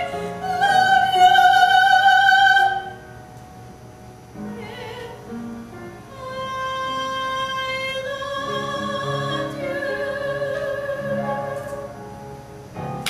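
A young woman singing a musical-theatre solo with quiet accompaniment. A loud, high held note with vibrato breaks off about two and a half seconds in, and softer closing phrases follow as the song ends.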